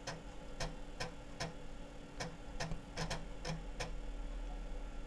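The IBM 5155's 5.25-inch floppy drive clicking while it loads a program from disk: about a dozen short clicks at uneven spacing, stopping about four seconds in, over a steady hum.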